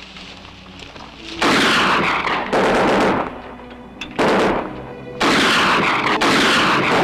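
Gunfire in three long bursts of rapid shooting, the first starting about a second and a half in and the last running nearly to the end, with music underneath.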